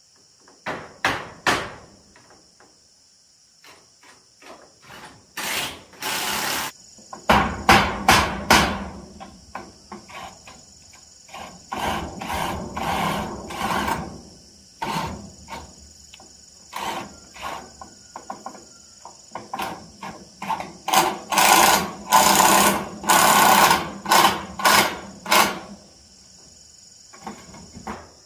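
Cordless drill driving screws through corrugated metal roofing sheets, in repeated short bursts and a few longer runs of a second or more. Insects keep up a steady high drone behind it.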